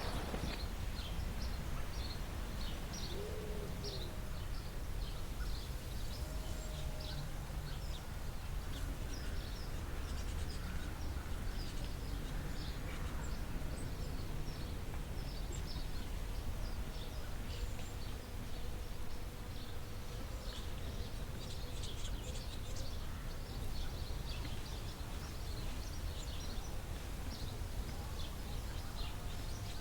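Outdoor ambience: many short, high bird chirps come and go throughout over a steady low background rumble.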